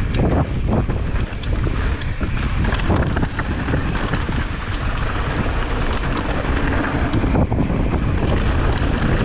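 Wind buffeting the microphone over a steady low rumble, as on a fast mountain-bike descent, with a few brief clatters near the start and about three seconds in.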